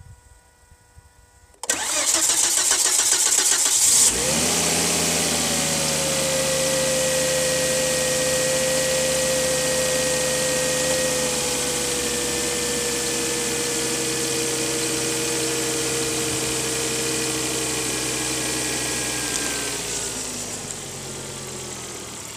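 Volvo S60's B5244S five-cylinder petrol engine cranking on the starter for about two and a half seconds before it catches, then running at a fast idle that slowly falls and settles lower near the end. The slightly long crank comes from some air in the fuel system after the fuel filter change.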